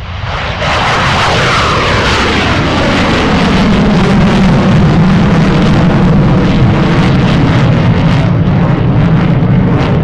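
Aeroplane engine noise, loud, swelling in sharply about half a second in, with a whine that falls in pitch over the first few seconds, then holding steady.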